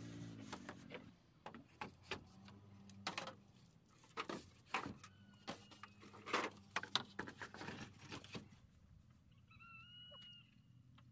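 Faint irregular knocks and clicks, with a low hum dying away in the first second, then one short chirping animal call near the end.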